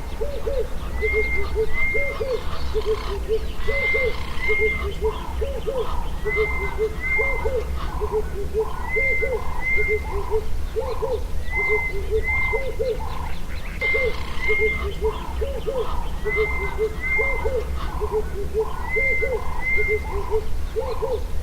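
Wild animal chorus, with frogs the likeliest callers: low calls repeated steadily, about one to two a second, and a pair of short high notes every two to three seconds.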